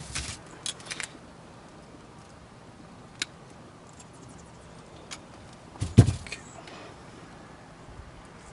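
Metal hardware and tools being handled during an installation: a quick cluster of clicks and clinks at the start, a single sharp click about three seconds in, and a louder knock about six seconds in.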